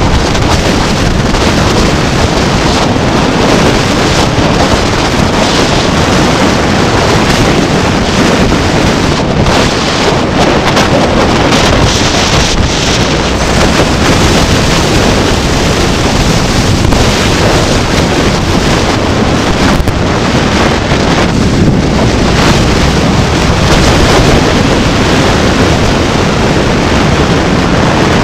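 Steady, loud wind rumbling over the microphone of a camera moving through traffic.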